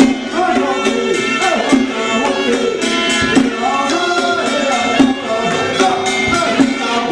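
Traditional temple ritual music: a sliding melody over a steady drone, with regular percussion strikes a little under a second apart.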